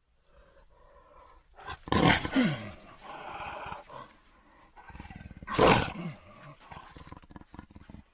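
Juvenile Tyrannosaurus rex sound effect: two roars about three and a half seconds apart, each falling in pitch, with quieter rasping growls around and between them.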